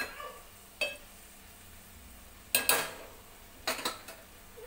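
Metal spoon knocking and clinking against a metal cooking pot while stirring cooked moong dal and green onions: a few sharp clinks, spaced out, with short pauses between them.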